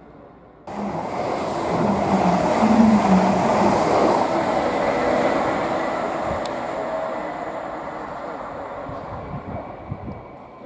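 Greater Anglia electric multiple unit passing through the station at speed without stopping: a sudden rush of wheel and air noise about a second in, loudest around three seconds, then fading as the train clears.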